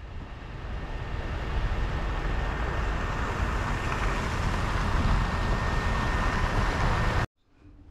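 Vehicle traffic on a snowy city street: a steady rush of engine and tyre noise that swells over the first few seconds as a vehicle comes closer, then cuts off suddenly near the end.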